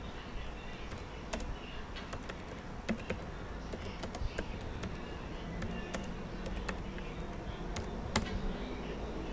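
Typing on a computer keyboard: irregular, uneven key clicks over a low background hum.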